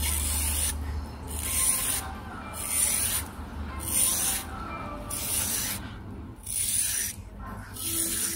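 Fork tines scraped lengthwise along a peeled cucumber to score grooves in its flesh for a decorative pattern: a series of raspy strokes, roughly one a second.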